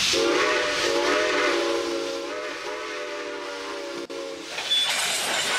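Steam locomotive chime whistle blowing one long blast, several notes sounding together as a chord, which breaks off abruptly about four seconds in. Rumbling train noise with hiss follows.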